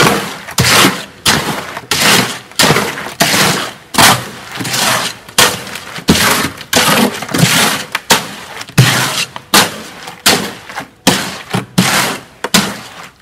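Wet concrete and gravel being worked with a long-handled blade and scraped across a wheelbarrow pan, in steady strokes of about one and a half a second, as superplasticizer is mixed into the batch. The strokes stop near the end.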